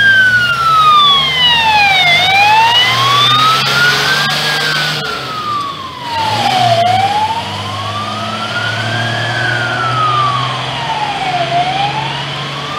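Star 266 fire truck's siren wailing, its pitch rising and falling slowly about every four to five seconds, over the truck's diesel engine running; the sound grows fainter as the truck drives away.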